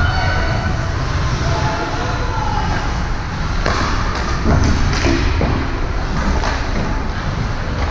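Game-side ambience at a youth sports venue: a steady low rumble with faint distant voices. A few knocks or thuds come between about four and five and a half seconds in.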